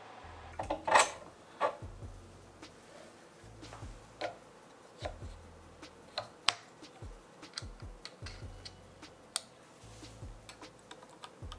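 Scattered light clicks and taps of hard 3D-printed plastic parts being handled and fitted together by hand, a spinner cone going onto a motor hub. The loudest cluster comes about a second in.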